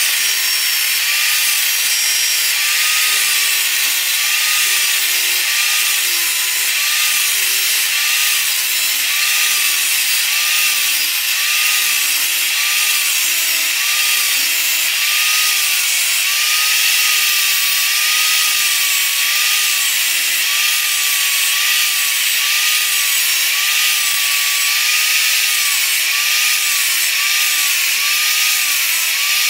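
Corded angle grinder with a thin abrasive disc grinding the teeth of a large crosscut saw blade: a steady hissing grind throughout, with the motor's pitch dipping and recovering about once a second as the disc bites into the steel tooth by tooth.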